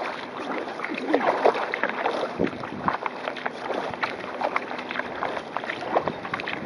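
Water splashing and slapping irregularly against the hull of a sail-driven kayak moving through choppy water, with wind on the microphone.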